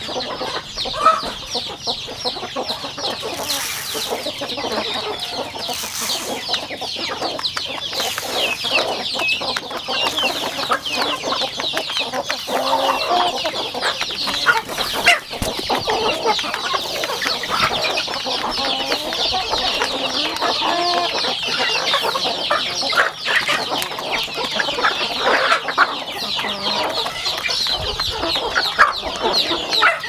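Flock of chickens calling continuously: a dense chorus of high, rapid peeping over lower clucks, with a few sharp clicks.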